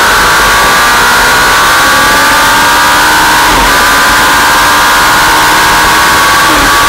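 2003 Yamaha R1's inline-four engine at high revs, its pitch climbing slowly as the bike accelerates, with brief dips about halfway through and near the end at gear changes. Heavy wind rush over the bike-mounted camera runs under the engine note.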